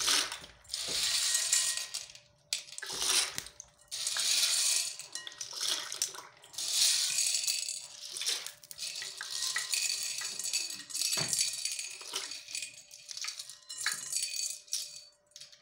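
Dry elbow macaroni rattling as it is scooped by hand from a glass bowl and dropped into a pan of hot water, in repeated bursts of clatter with short pauses between handfuls.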